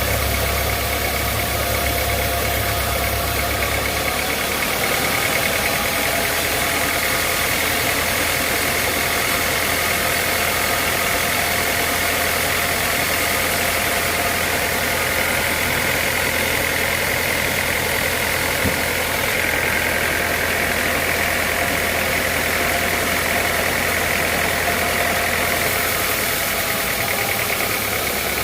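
Sawmill machinery running steadily, a continuous mechanical noise with a steady high whine and a low hum that drops off about four seconds in and returns near the end.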